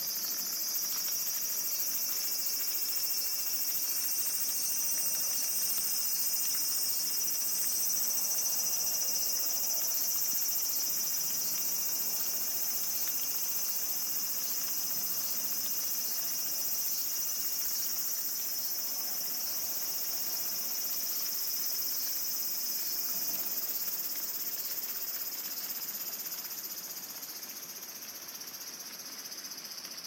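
Dense, steady, high-pitched chorus of insects in summer evening vegetation, easing off slightly near the end.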